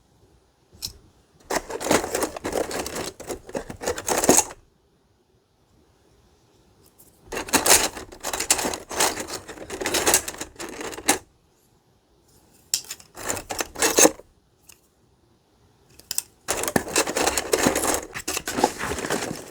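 A pile of computer RAM sticks clattering and clicking against each other as they are rummaged through, in four bursts with pauses between them.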